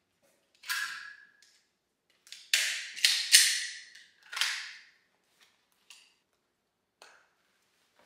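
Gun gear being handled on a stone countertop: a string of sharp clacks and snaps, the first with a brief metallic ring about a second in and a quick run of louder clacks in the middle, then a few light ticks.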